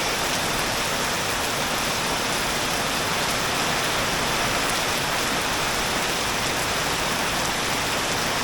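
Heavy tropical downpour: dense, steady rain drumming on the pool and surrounding surfaces, an unbroken hiss.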